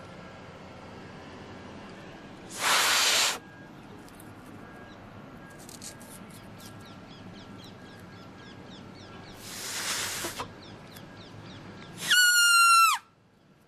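Grass-blade whistle blown between cupped thumbs: two breathy, hissing blows that fail to catch, about 3 s and 10 s in. Then, about 12 s in, a loud, high, shrill squeal lasting about a second, its pitch dropping as it ends.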